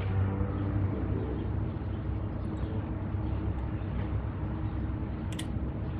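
Steady low hum in the background, with one light metallic click about five seconds in as a new brake hardware clip is pressed onto the caliper bracket.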